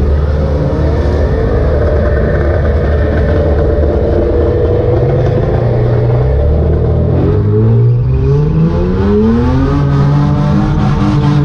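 Car engine running loud and steady at low revs, then revving up over a few seconds, about halfway through, and holding at a higher, steady pitch.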